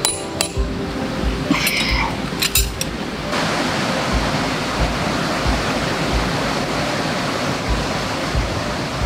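A mallet strikes a metal tent peg once or twice at the start, then metal clinks twice between about 1.5 and 3 seconds in. From about three seconds in, a steady rushing noise takes over, with background music and a steady beat underneath.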